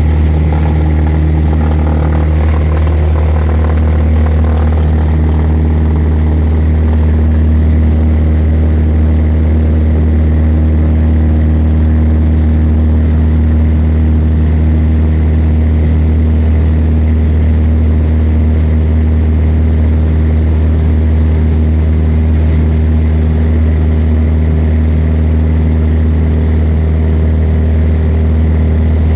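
Cessna's engine and propeller droning steadily, heard from inside the cabin.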